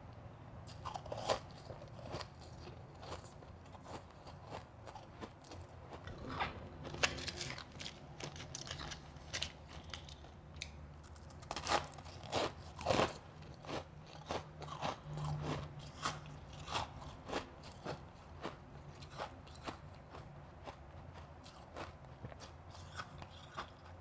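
Close-miked biting and chewing of packed shaved ice: a run of irregular crisp crunches, with the loudest bites about 7, 12 and 13 seconds in.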